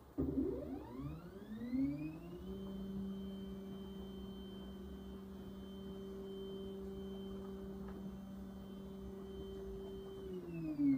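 Ooznest OX CNC's stepper motors jogging the machine to its start point: a whine that rises in pitch for about two seconds as the axis speeds up, holds one steady pitch while it travels, then falls away near the end as it slows to a stop.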